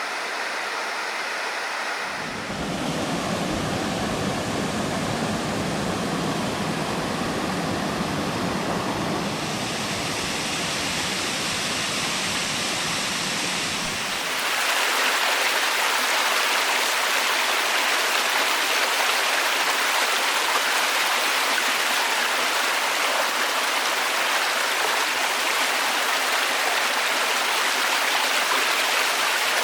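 Waterfall water rushing steadily. The sound changes abruptly twice, about two seconds in and again about halfway through, as it cuts to a different stretch of falling water: first deeper and fuller, then brighter and hissier.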